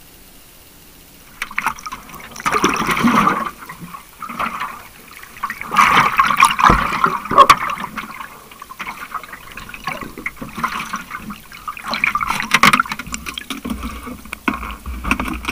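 Water bubbling and gurgling, heard underwater just below the surface, in irregular rushes a few seconds apart.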